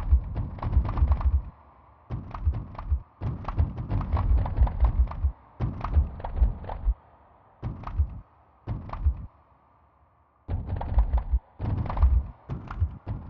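Sonified earthquake swarm: each tremor plays a short sample of a sped-up seismograph recording, heard as a deep thud with a click on top. The pitch marks the quake's depth, and the length and loudness mark its magnitude. The thuds come in dense irregular clusters broken by short silent gaps, the longest a little after nine seconds in.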